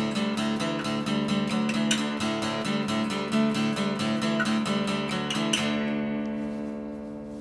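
Intro music: a strummed acoustic guitar playing a quick, even rhythm, which stops about five and a half seconds in on a chord left ringing and fading away.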